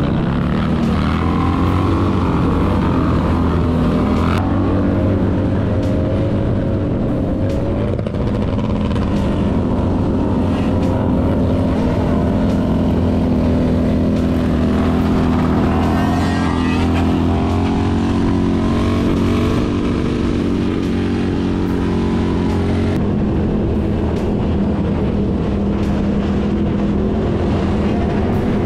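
Harley-Davidson V-twin motorcycle engine running on the road, its note rising and falling with the throttle.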